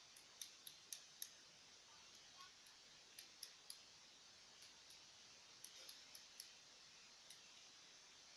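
Small scissors snipping hair close to the microphone, in quick runs of several snips with short pauses between.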